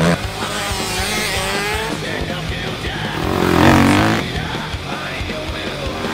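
Quad (ATV) engines revving up and down as they race past on a dirt track, over rock music. The loudest rev swells about three and a half seconds in.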